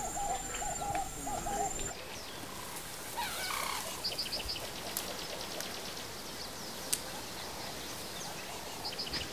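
Outdoor bird ambience: a dove cooing in a repeated run of low notes for the first two seconds, then, after a change in the background, scattered high chirping calls of small birds.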